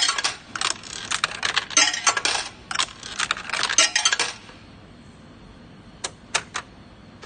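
Coins dropped one after another into a Coinco CC6100 coin changer, clattering through its acceptor as it is calibrated on new Malaysian 50-sen coins. The clatter stops about four seconds in, and three short clicks follow near the end.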